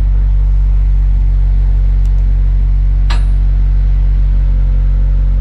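Acura Integra's engine running at a steady speed, a deep even rumble, with one sharp click about three seconds in.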